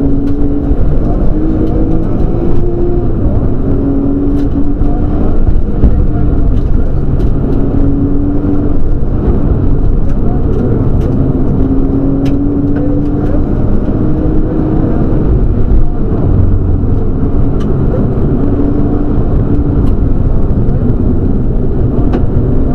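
Nissan Skyline GTS-t's RB20 turbocharged straight-six, heard from inside the cabin, running hard under load. Its note climbs several times and drops back as the car accelerates through the gears, over heavy road and tyre noise, with a few light clicks.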